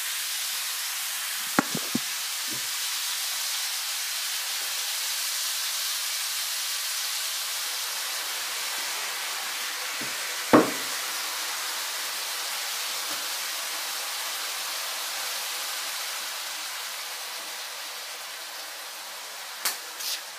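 Lamb pieces sizzling steadily in hot oil in a frying pan, easing off a little near the end. A few short knocks, the loudest about ten seconds in.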